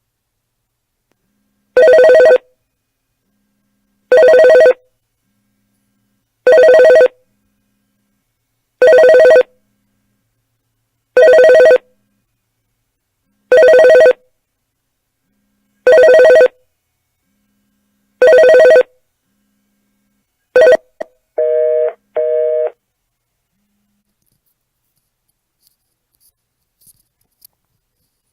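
TAL BTL-BL Bluetooth bottle speaker sounding its built-in electronic prompt tone: eight identical beeps, about one every two and a half seconds. They are followed by a short blip and two shorter, quieter tones.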